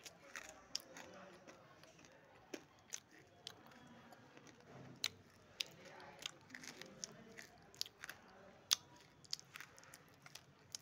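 Chunks of dry clay being bitten and chewed close to the mouth: sharp, irregular crunches, one or two a second, with softer grinding between them, the loudest crunch near the end.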